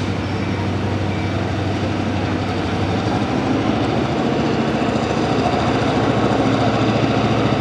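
Diesel engines of a Budd RDC rail diesel car running steadily as the car moves along the track, with a diesel locomotive idling close by. The drone grows slightly louder.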